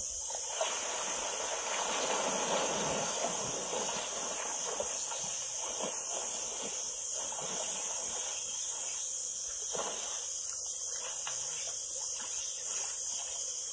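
Insects droning in a steady, high-pitched chorus. For about the first four seconds a louder rushing noise sits under it, and a short one comes again near the ten-second mark.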